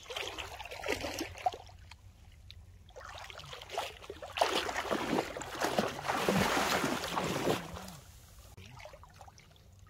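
Shallow seawater splashing and sloshing in two stretches: a short one at the start and a longer, louder one from about four and a half to seven and a half seconds in.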